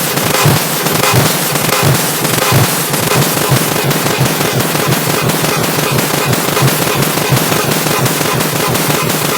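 Car horn beep stacked and multiplied into a loud, distorted wall of noise, crackling with rapid irregular pulses.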